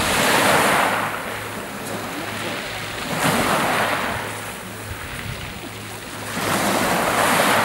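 Small waves breaking and washing over a shore of small round pebbles. The surf hiss swells and fades three times, about every three seconds.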